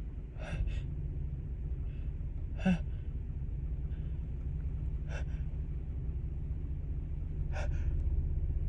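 A woman's short gasping in-breaths, four of them about two and a half seconds apart, the second the loudest with a little voice in it: the catching breaths of a sneeze building from a tickling nose with a cold. A steady low hum runs underneath.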